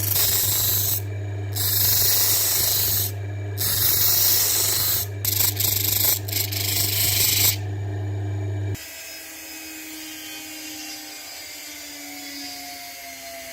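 Abrasive sanding on a knife part: harsh grinding strokes with short pauses over a steady motor hum, typical of a powered sander with the work pressed on and lifted off. Both stop suddenly about nine seconds in, and a quieter whir with a slowly shifting pitch carries on.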